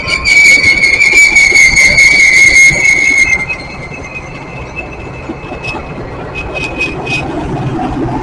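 Metra commuter train of bilevel cars rolling past at speed: a steady high-pitched wheel squeal and clacking over rail joints for about three seconds, then a much quieter rumble with a few clicks as more cars go by.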